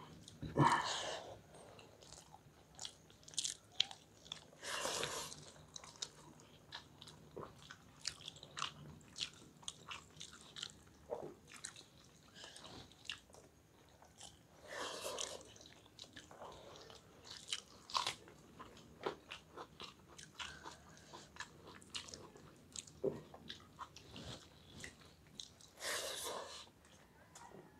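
Close-miked chewing of rice and curry eaten by hand: many short wet smacks and clicks of the mouth, with a few longer hissy swells about five, fifteen and twenty-six seconds in.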